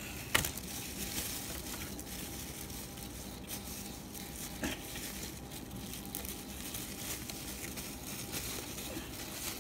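Plastic packing wrap crinkling and rustling as it is handled and pulled off an item, with cardboard rubbing, and one sharp click about half a second in.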